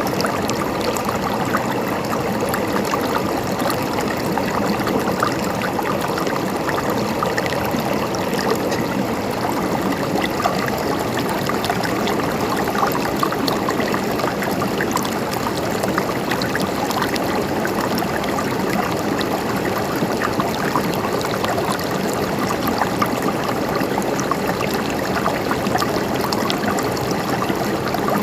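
River water flowing steadily over rocks, a continuous rushing and gurgling with many small splashes.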